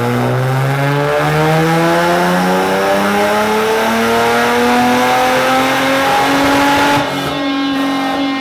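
Nissan VQ35 V6 on a chassis dyno doing a full-throttle pull: the revs climb steadily for about seven seconds, then the throttle is lifted and the engine drops off, very loud inside the dyno room.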